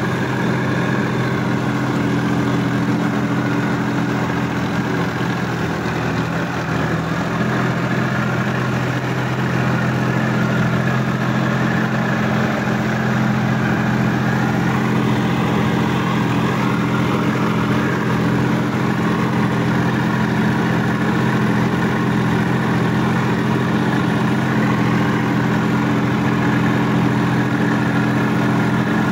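Sonalika DI-50 RX tractor's diesel engine running steadily as the tractor drives through a flooded, muddy paddy field.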